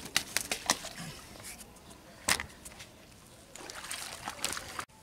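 Water splashing and sloshing at a pond's edge as the fisherman handles things at the waterline, with a run of sharp clicks and knocks in the first second and one loud knock about two seconds in. The sound cuts off suddenly just before the end.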